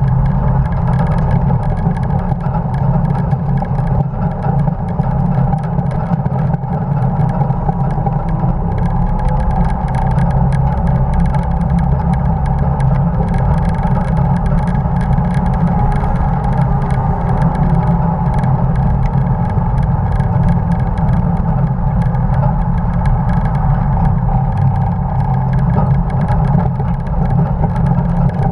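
1950 Dodge pickup race truck at speed on track: its engine running steadily under load, mixed with wind and road noise and a fine rattle.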